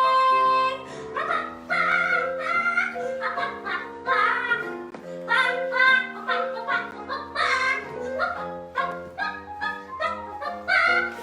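A song with an operatic-style singing voice over instrumental accompaniment.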